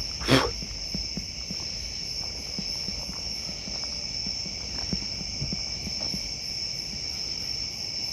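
Night insects, crickets, chirping steadily in a dense high chorus with a pulsing beat. A brief falling swish about a third of a second in is the loudest sound, with faint scattered ticks after it.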